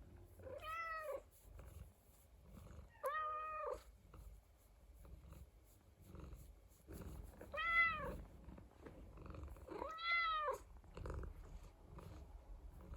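Domestic cat meowing four times, each meow under a second long, rising and then falling in pitch. A steady low purr runs underneath.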